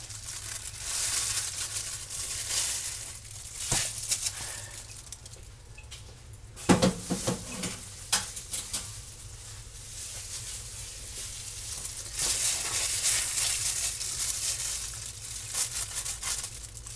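Thin plastic disposable gloves crinkling and rustling as raw chicken breasts are handled and cut, with a few sharp knocks on the plastic cutting board. The hissy rustle comes and goes, loudest at the start and again near the end.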